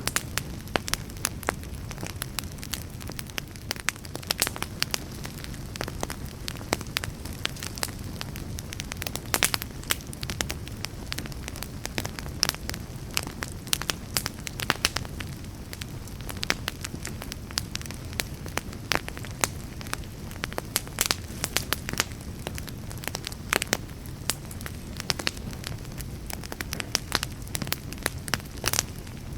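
Wood fire burning with many sharp, irregular crackles and pops over a steady low rumble of flame.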